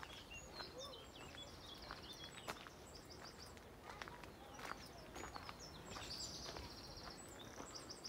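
Several small songbirds singing faintly in woodland: short high chirps throughout and rapid trills a few times, over a quiet outdoor background, with soft irregular footfalls on a dirt path.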